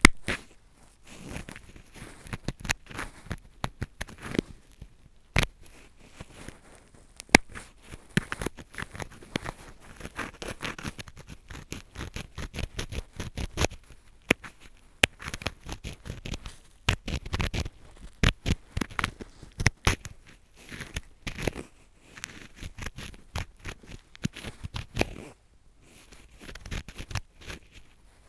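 Close-up ear-cleaning scratching with a drill screw: the threaded metal screw scrapes and rubs against the microphone, giving irregular scratchy strokes full of sharp clicks, with a brief pause near the end.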